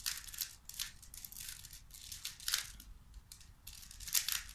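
Plastic 3x3 Rubik's cube being turned rapidly by hand, its layers making a run of irregular clicks and rasps.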